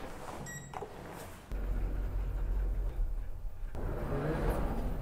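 A lift's short electronic beep as the call button is pressed, then a steady low rumble from about a second and a half in as the lift car runs.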